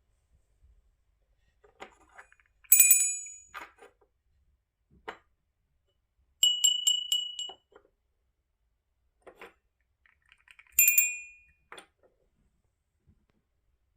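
Small metal bells ringing: a single ring about three seconds in, a quick run of about five rings in the middle, and another single ring near the end, each dying away. Soft knocks come between the rings.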